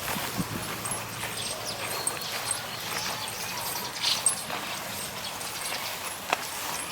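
Footsteps on a walk: light, irregular clicks and taps over a steady outdoor hiss, a few sharper ones about four seconds in and near the end.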